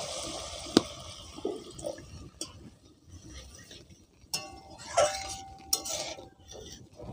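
A flat metal spatula stirring and scraping watery gravy in a metal kadai, knocking and clinking against the side of the pot, with a sharp knock about a second in. The splash of water being poured into the gravy trails off at the start.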